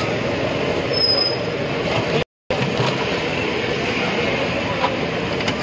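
Steady background din of a busy street food stall, an even noisy wash with no clear speech, cutting out completely for a moment a little over two seconds in.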